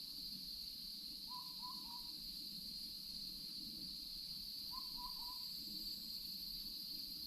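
An owl hooting twice, each time a quick run of three short notes, about three and a half seconds apart, over a steady high-pitched drone.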